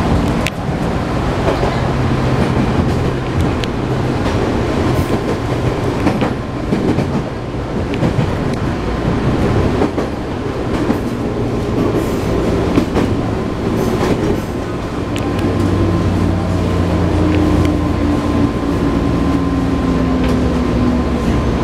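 Onboard running sound of a JR 205 series 1000-subseries electric train: its DC traction motors under field-added excitation control hum steadily over the rumble of the running gear, with scattered clicks of the wheels over rail joints. Near the end a whine falls slightly in pitch.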